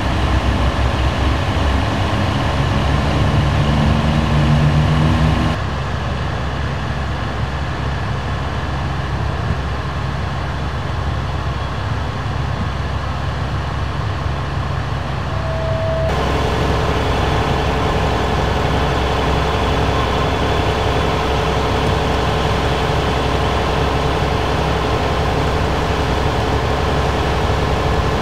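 Heavy emergency-vehicle diesel engines idling steadily. The sound changes abruptly about five seconds in and again about halfway, first to a quieter low rumble and then to a steady hum with a few held tones.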